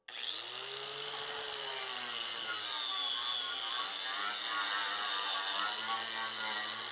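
Electric angle grinder spinning up and then running steadily with its disc worked against a sheet-metal plate. Its whine rises over the first second, then holds.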